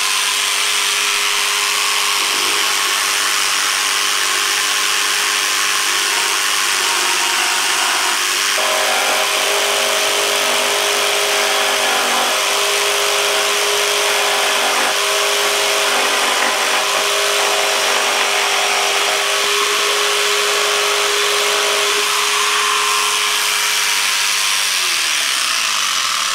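Jigsaw with a thin scrolling blade cutting curves in 3/16-inch luan plywood, running continuously with a steady motor whine. The whine shifts in pitch about a third of the way in and again near the end.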